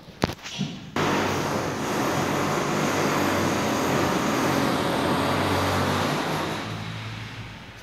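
A loud mechanical rumble with a steady low hum, starting suddenly about a second in after a single click and fading away near the end.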